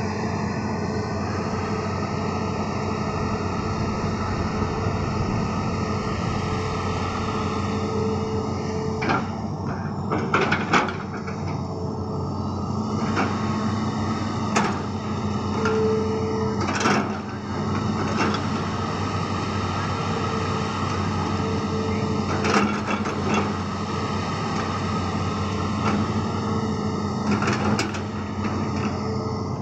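Hitachi ZX200 tracked excavator's diesel engine running steadily under load while it digs a ditch. Sharp knocks come every few seconds as the bucket bites into and dumps the soil.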